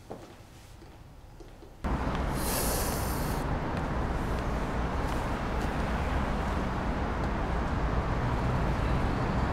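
Quiet room tone, then about two seconds in an abrupt switch to steady city street traffic noise with a low rumble, and a brief high hiss just after the switch.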